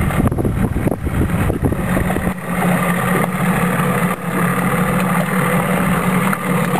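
Freshly rebuilt Johnson 15 hp two-stroke outboard motor on its first test run. It runs unevenly for about the first two seconds, then settles into a steady idle.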